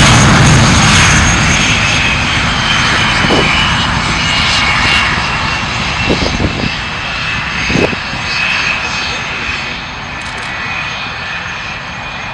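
English Electric Lightning F6's twin Rolls-Royce Avon jet engines running, a loud rushing noise with a high whine, gradually fading as the aircraft draws away. A few brief knocks fall about three, six and eight seconds in.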